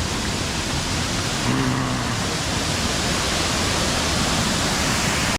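Steady rushing of a large waterfall, a dense even noise.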